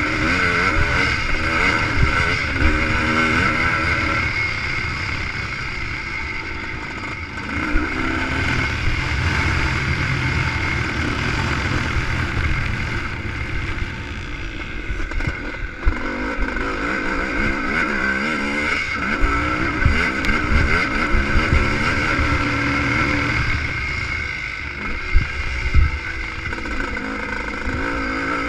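Onboard sound of a ČZ two-stroke motocross motorcycle at race pace, the engine revving up and falling back again and again through the gears and corners, with wind rushing over the microphone and the bike knocking over bumps in the dirt track.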